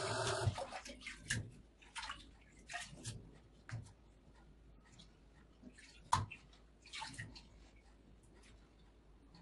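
Running tap water stops about half a second in, then scattered wet splashes, drips and light knocks as raw chicken hearts are rinsed and handled in a colander over a steel sink.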